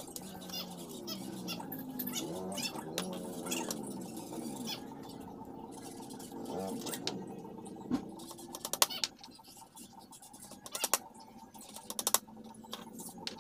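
Sharp knocks from hand-tool work on a wooden stool frame, in a few short clusters in the second half, over a wavering pitched background sound in the first half.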